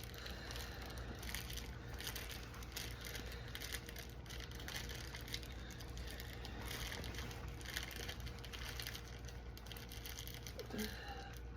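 Plastic film crinkling and rustling as it is handled and wrapped around a plastic stake, many small irregular crackles over a faint low hum.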